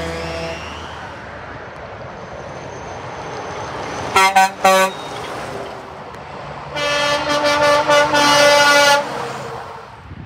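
Truck air horn: a couple of short toots about four seconds in, then one long blast of about two seconds, over the fading engine noise of a passing truck.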